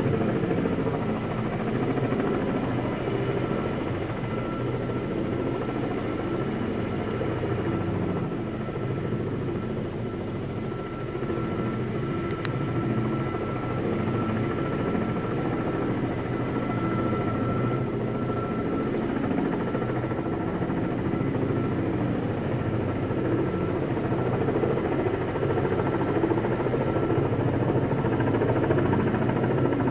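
Kamov Ka-32A11BC coaxial-rotor helicopter running steadily, its rotor and turbine noise dipping a little about a third of the way in, then growing louder again toward the end.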